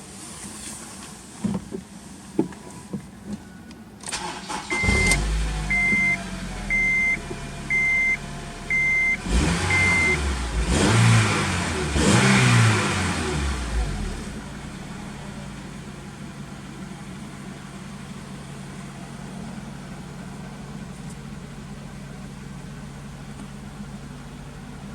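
Honda Integra Type S (DC5) four-cylinder engine with an aftermarket muffler: after a few clicks, a warning chime beeps six times as the engine starts. It is revved briefly two or three times, then settles into a steady idle.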